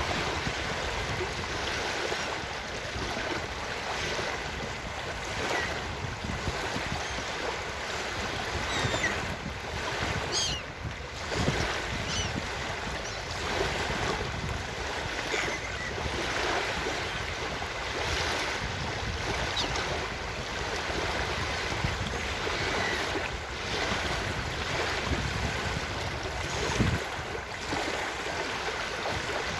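Ocean surf washing on a beach in a steady wash of waves with some wind. A few faint seagull calls come through about ten seconds in.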